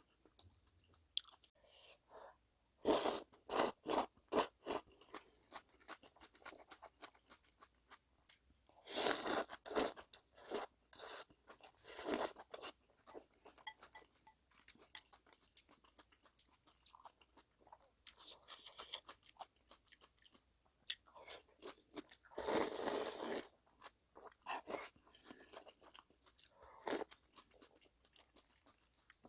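Close-miked chewing and crunching of food in bursts, with quieter pauses between them. The crisp crunch fits freshly made napa cabbage kimchi (geotjeori) being bitten and chewed.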